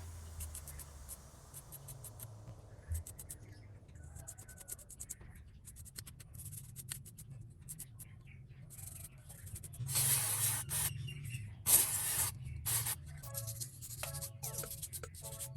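Hand repair work on a phone: scraping and clicking, with two short hissing bursts about two-thirds of the way through, over faint background music.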